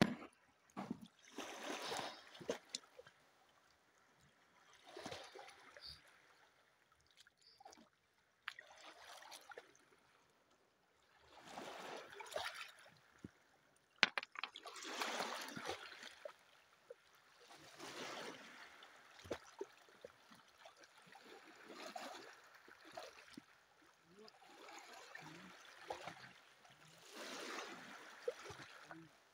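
Small waves lapping and washing around rocks in shallow seawater, swelling and fading about every three seconds. A few sharp knocks from the phone being handled near the start.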